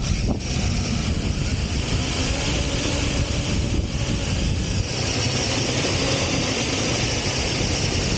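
RC car driving fast over sand, its drivetrain and tyre noise mixed with steady wind rumble on the microphone.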